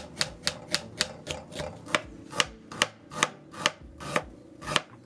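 Kitchen knife chopping fresh ginger on a cutting board: a steady run of sharp taps, about three a second.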